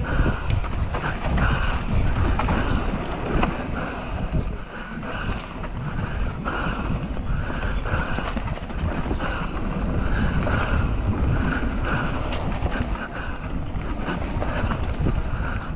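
Wind buffeting the microphone over the rattle, clicks and knocks of a mountain bike riding over a dirt trail.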